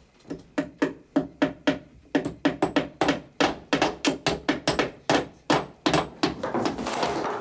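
Hammer blows driving nails into wooden boards: a fast, regular run of strikes, about three or four a second. Near the end a dense noisy wash swells up over them.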